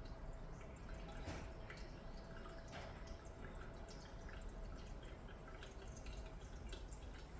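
Cat lapping water: faint, irregular small wet clicks and splashes.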